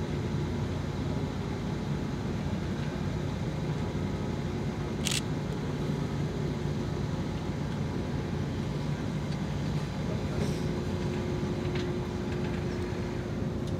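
Steady low drone of ship diesel engines carried across the water, from the container ship and the tug working alongside it. One sharp click comes about five seconds in.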